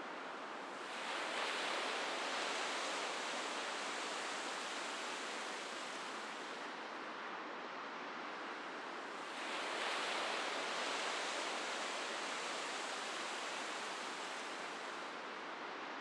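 Ocean surf breaking on a stony beach: a steady wash that swells twice, about a second in and again a little past halfway, each time slowly fading as the wave spends itself.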